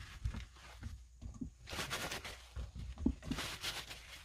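A towel rustling as washed chili peppers are rubbed dry, in two stretches, with a few soft knocks as the peppers are set down on the cutting board.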